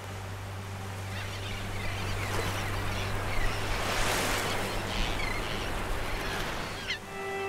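Outdoor ambience of a seabird nesting colony: a rushing wash of surf-like noise that swells toward the middle, with scattered short bird calls over a low steady drone.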